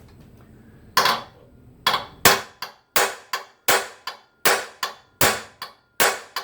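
Hammer striking a steel punch held on a rusted, stuck cylinder-head bolt, metal on metal, to shock it loose. A steady series of sharp taps, about two a second, beginning about a second in.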